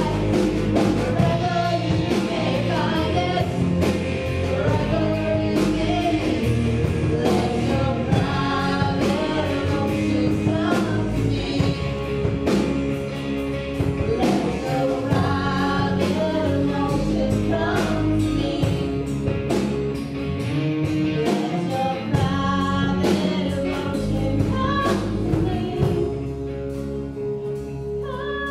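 Two women singing a show tune together over instrumental accompaniment.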